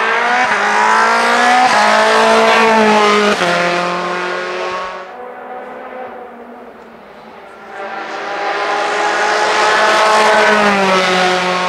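Open-wheel formula race car engine at full throttle, climbing in pitch through a gear with a sharp upshift drop about three and a half seconds in, then fading away. It swells again as the car approaches and passes close, the pitch falling as it goes by near the end.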